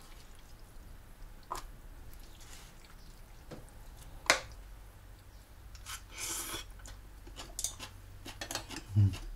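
Kitchen handling sounds of dishing up food: scattered clicks and taps of utensils against bowls, with one sharper click about four seconds in and a brief scraping rustle about six seconds in.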